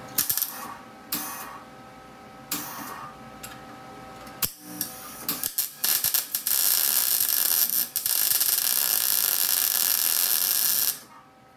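Wire-feed welder arc crackling on steel, first in several short bursts and then in one steady run of about five seconds that cuts off sharply near the end.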